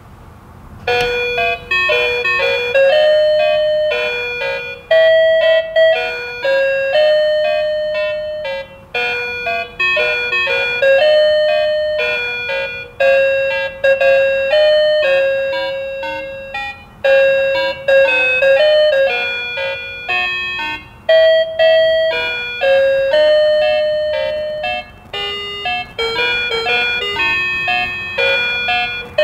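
Electronic tune from a push-button talking toy vehicle's small speaker: a simple beeping melody in repeated phrases, starting about a second in after a button is pressed.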